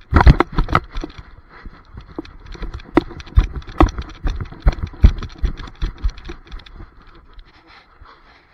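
Camera strapped to a running dog, jolted and knocked by its strides: heavy thumps as it lands from a leap at first, then a steady patter of lighter footfalls, about two or three a second, fading out near the end.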